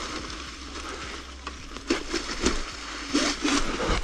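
Dry leaf litter and twigs rustling and crunching under an electric scooter's tyres and a rider's feet on a forest trail, with several knocks in the second half.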